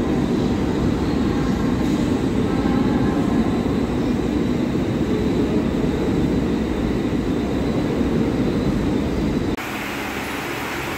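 Steady low rumble of a train running on the tracks. It cuts off abruptly near the end and gives way to a quieter, hissing station background.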